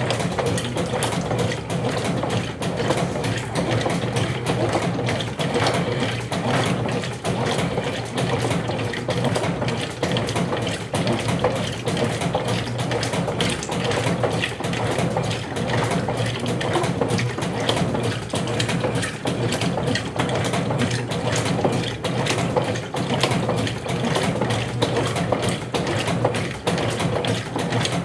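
Brastemp Clean 7 kg (BWC07) top-loading washing machine running steadily through its rinse cycle: a continuous mechanical churning mixed with water.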